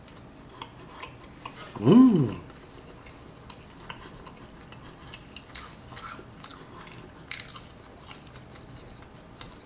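A man chewing soggy French fries close to the microphone, with small wet mouth clicks. About two seconds in, a short vocal hum rises then falls in pitch, louder than the chewing.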